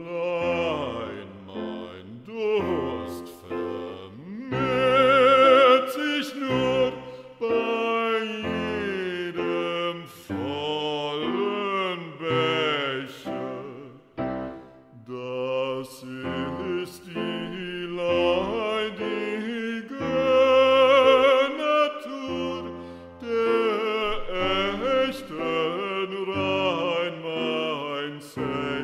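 Bass voice singing in operatic style with a wide vibrato, in phrases broken by short breaths, over a musical accompaniment.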